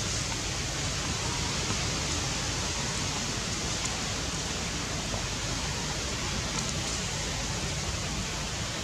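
Steady, even hiss of outdoor ambient noise with no distinct calls or knocks in it.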